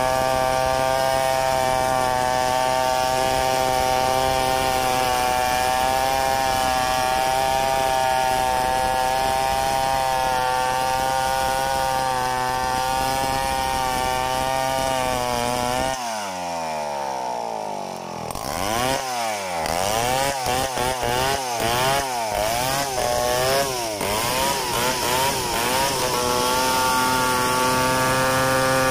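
Stihl 070 chainsaw, a large two-stroke, ripping lengthwise through a log under steady load. About halfway through, the engine pitch swings rapidly up and down for several seconds, then settles back into a steady run.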